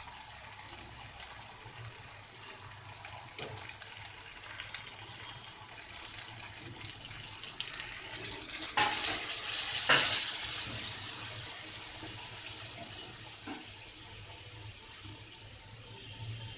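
Water poured from a jug into a hot kadai of fried-down chicken and potatoes, hissing as it hits the oil; it swells from about seven seconds in, is loudest with two light knocks around nine to ten seconds, then fades. The water goes in once the masala has been fried until the oil separates, to start the gravy.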